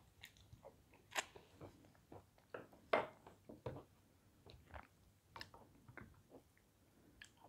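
A person chewing sweets close to the microphone, with irregular crunches and wet mouth clicks; the loudest crunch comes about three seconds in.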